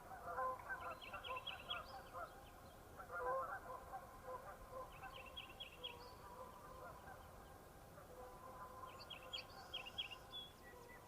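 A flock of geese honking, with many overlapping calls that are busiest in the first few seconds and then thin out. Three times, a short, quick, higher-pitched chatter sounds over them.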